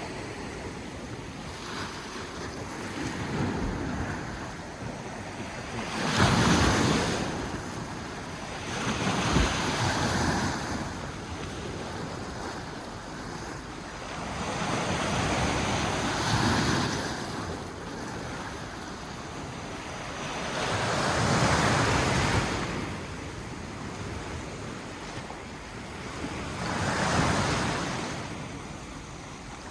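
Sea waves breaking on a rocky shore, the surf swelling and fading about six times, loudest around six seconds in, with wind buffeting the microphone.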